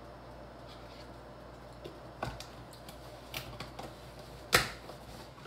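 Light clicks and taps of kitchen items being handled on a counter, scattered from about two seconds in, with one louder sharp knock near the end, over a low steady room hum.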